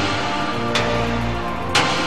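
Background music: sustained tones with a sharp percussive hit about once a second, twice in this stretch.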